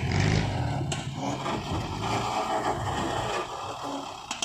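Jeep CJ-7 engine running as it crawls over rough forest ground. Its low rumble eases off about half a second in, and a few sharp knocks come through, one about a second in and one near the end.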